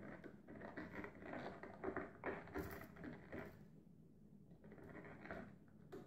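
Faint, irregular scraping, rustling and small clicks of hands working a bent wire loop onto a light switch's terminal screw, with a brief lull just past the middle.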